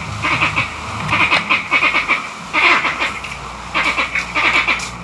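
Barbados green monkeys giving angry calls: about six bursts of rapid, harsh pulsing, each under a second long. The recorder had never heard them make this sound and takes it for a territorial dispute over the mango trees or a fight for power within the troop.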